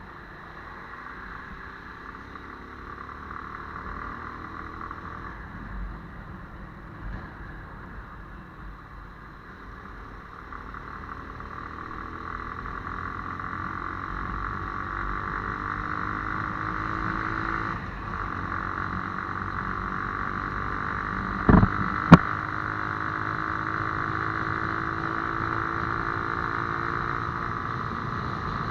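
Motorcycle engine running under way, its pitch rising and falling as it picks up speed and shifts, with steady wind rush on the camera microphone. About two-thirds of the way in come two sharp knocks in quick succession.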